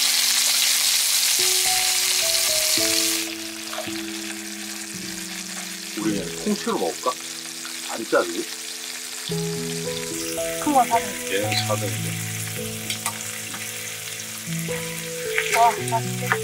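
Whole abalone frying in butter in a pan, sizzling loudly for about the first three seconds, then settling into a softer steady sizzle.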